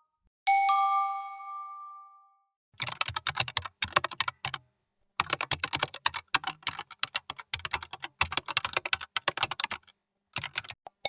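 A bell-like ding rings out and fades over about two seconds. Then comes rapid typing on a computer keyboard for about seven seconds, with a short pause partway through, and a brief last burst of keystrokes near the end.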